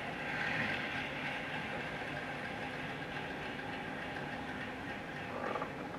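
Faint, steady hiss of background noise, with a few light clicks near the end.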